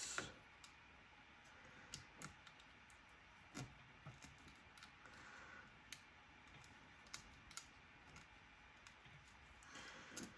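Faint, scattered small clicks and taps from hands handling tools and small parts while working on an opened iPad, with near silence between them.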